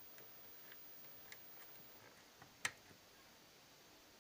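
Near silence with a few faint ticks and clicks from cables and parts being handled, and one sharper click about two and a half seconds in.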